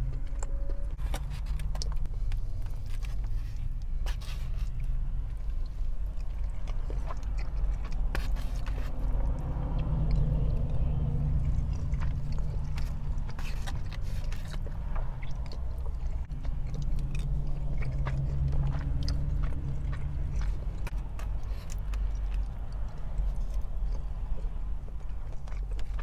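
Close-miked chewing and wet mouth sounds of someone eating fried rice and chicken, with short clicks and crackles throughout and a plastic fork scraping and picking in a styrofoam container. A steady low rumble lies underneath.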